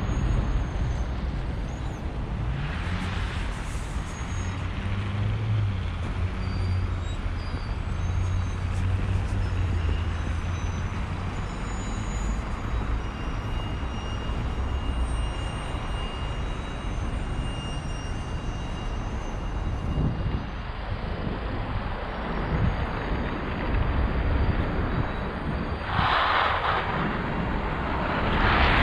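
Road traffic: a steady low rumble of passing vehicles, with a deeper engine hum through the first third and two short rushes of noise, one about three seconds in and a louder one near the end.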